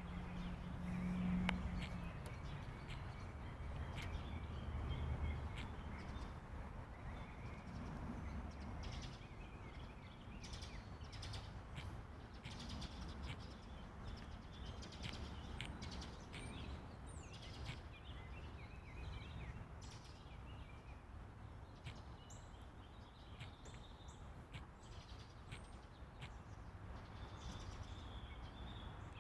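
Northern mockingbirds singing: strings of short, varied chirps and whistled phrases, over the steady hiss of rain. A low hum sounds under them for the first few seconds.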